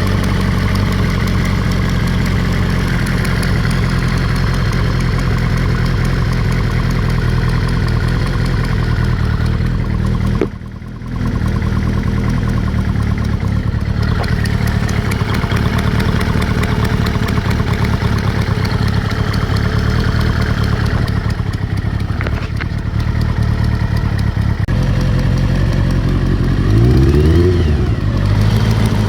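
Kawasaki ZR-7S motorcycle's air-cooled inline-four engine idling steadily with the ticking noise its owner is trying to trace. Near the end the throttle is blipped twice, the engine note rising and falling each time.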